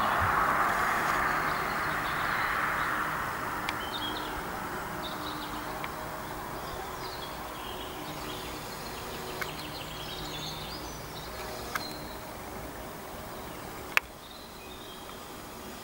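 Road traffic passing and fading away over the first few seconds, then small birds chirping here and there over a faint distant traffic hum. A single sharp click about fourteen seconds in.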